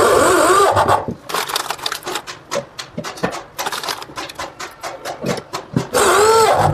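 Cordless drill-driver whirring twice as it drives screws into plywood, its pitch dipping under load, once at the start and again near the end. In between come light clicks and knocks of handling the fitting and the board.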